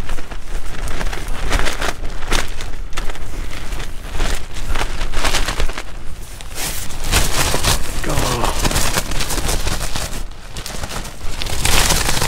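Very strong wind buffeting a tent, the fabric flapping and snapping in irregular sharp cracks over a constant rumble of wind on the microphone, with the flapping heaviest near the end.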